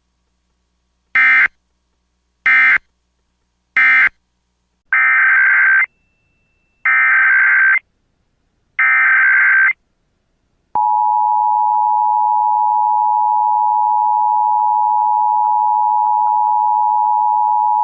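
Emergency Alert System SAME digital data bursts: three short end-of-message bursts, then three longer header bursts for the next alert, each a harsh buzzing screech. About a second later, the steady EAS two-tone attention signal (853 and 960 Hz) starts and holds.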